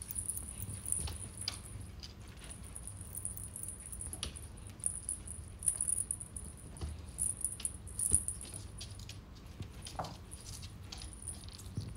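Kitten batting at a pompom wand toy on a glass tabletop: irregular light taps and clicks of paws and toy on the glass, with a faint jangling rattle.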